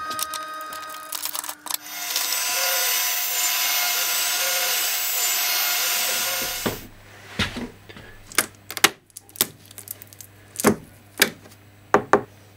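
CNC router spindle with a steady whine, then cutting 12 mm acetal sheet loudly for about four seconds before it stops. After that, a string of sharp knocks and clatters from the cut acetal plates being handled, over a low hum.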